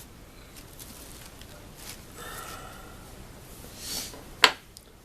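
A small dry brush sweeping sanding dust off the mandolin's frets and fretboard, soft and breathy, with one sharp click about four and a half seconds in.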